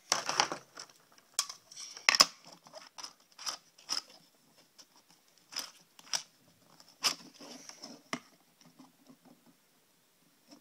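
Plastic toy parts and clear plastic packaging being handled: a rustle at the start, then irregular sharp clicks and taps, the loudest about two seconds in, dying away for the last couple of seconds.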